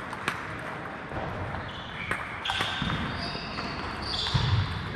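Table-tennis balls clicking sharply on tables and bats, a few scattered clicks, over the echoing background noise of a large sports hall, with short high squeaks in the middle and near the end.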